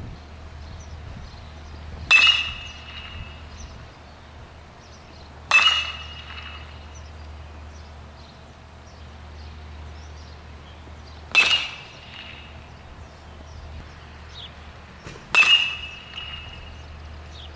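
Baseball bat hitting balls four times, about 3 to 6 seconds apart, each hit a sharp ping with a short ring.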